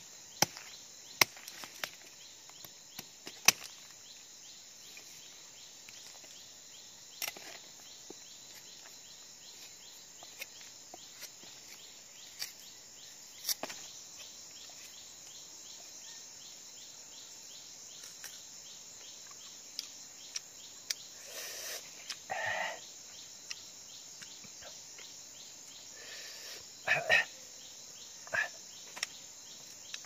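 Forest insects chirping in a steady, rhythmic high-pitched trill, with scattered sharp knocks and clicks and a few brief rustles or scrapes over it.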